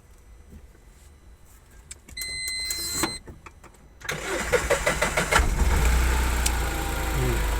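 Vehicle engine being started with its freshly repaired electric self-starter: a short first burst about two seconds in, then about four seconds in it cranks, catches and settles into a steady idle.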